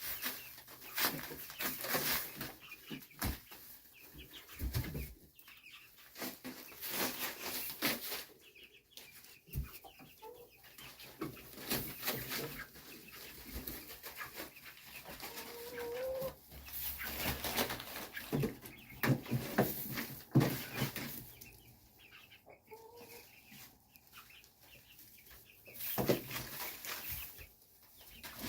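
Chickens clucking, with a few short calls and many sharp taps and scratches around them.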